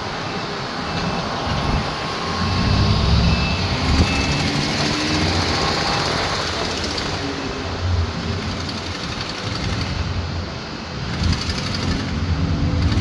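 Van driving along while towing a trailer: steady road noise and engine, the engine note rising as it picks up speed a few seconds in and again near the end.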